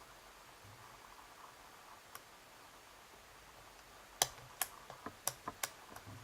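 Sharp clicks of a lock pick (a hook with a tension wrench) working the pins of a pin-tumbler challenge lock. One faint click about two seconds in, then a quick run of about eight clicks from about four seconds in, while the pins are not setting.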